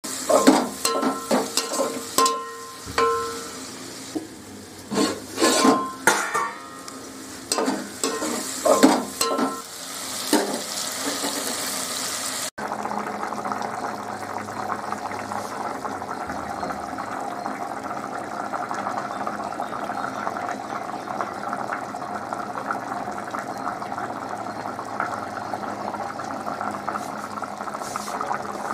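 A metal ladle stirring curry and knocking against an aluminium pot, the pot ringing briefly with several of the strikes. After a cut about twelve seconds in, a steady bubbling sizzle of the curry simmering.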